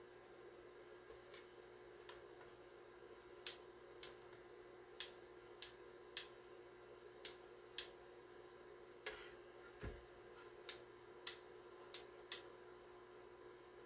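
About eleven sharp clicks in quick pairs and threes from the opened Super Star T747 microphone test center as it is handled and worked on by hand, with one dull knock about ten seconds in. A steady low electrical hum runs underneath.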